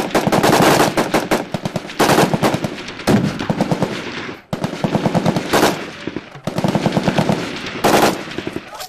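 M16-type rifle firing fully automatic: several long bursts of rapid shots in quick succession, with a short break about halfway through.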